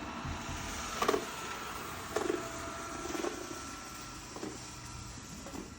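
Xiaomi E10 robot vacuum running with a steady hum, with a handful of short knocks about a second apart.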